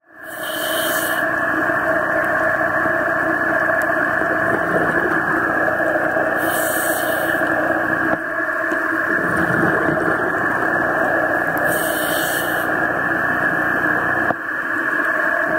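Underwater sound picked up by a diver's camera: a steady, muffled rushing noise, with a brief hiss about every five and a half seconds from the scuba diver breathing through the regulator.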